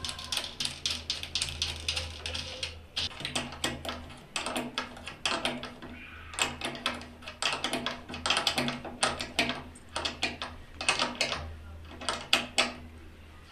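Rapid, irregular clicking and light metallic rattling of wires and their metal terminals being handled and fitted onto an electric geyser's heating-element and thermostat terminals, over a steady low hum.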